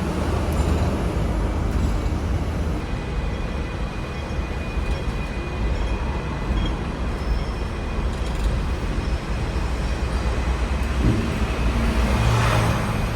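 Steady low rumble of a moving vehicle, with faint high steady tones above it and a louder swell with a low hum near the end.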